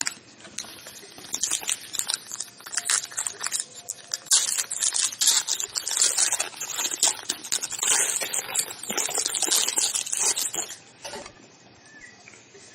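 Trading cards being handled and sorted, a fast, irregular run of dry rustles, flicks and crackles that dies down about eleven seconds in.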